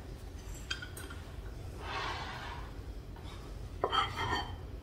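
Cookware being moved on a kitchen counter: a couple of light metallic clinks about a second in, a soft sliding scrape around two seconds, then a few more clinks near the end as a skillet is set down.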